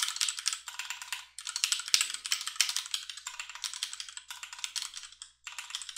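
Fast typing on a computer keyboard: keys clicking in quick bursts, with brief pauses between them.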